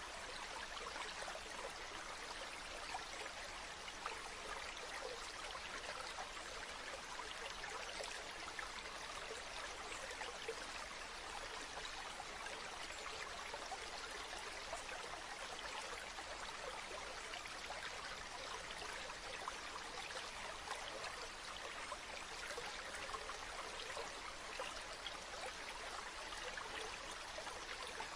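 A stream flowing steadily, a continuous rush of water.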